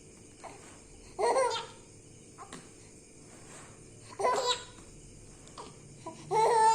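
A baby laughing in three short, loud bursts, about three seconds apart, with quiet between them.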